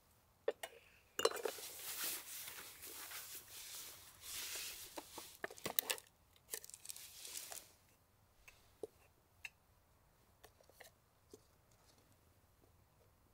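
Packaging being torn open and crinkled in the hands, with sharp crackles for several seconds, then a few light clicks and taps.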